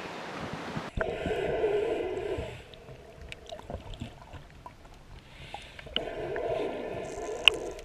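Muffled underwater sound through an action camera's waterproof housing beneath the catamaran's fouled hull while the bottom is being scrubbed. It switches suddenly to the underwater sound about a second in, with two spells of louder rushing noise, one near the start and one near the end, and scattered clicks between them.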